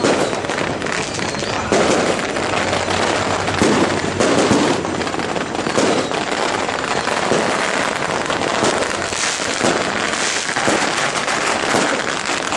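Strings of firecrackers going off in a continuous rapid crackle of sharp pops, with no break.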